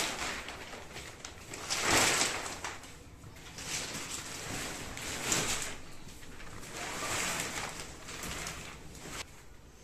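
Clear plastic mattress wrap rustling and crinkling as it is pulled off the mattress, in several swishes, the loudest about two seconds in.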